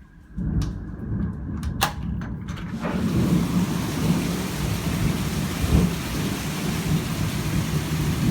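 Thunderstorm: thunder rumbling low and heavy rain pouring, coming in suddenly about half a second in. A few sharp clicks sound in the first three seconds before the rain hiss fills in fully.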